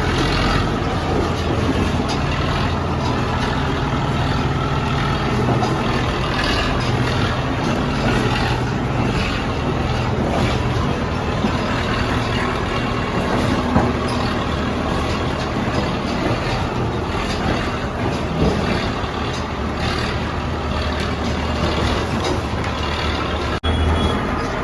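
Heavy engine of road-repair machinery running steadily, with irregular clattering over it.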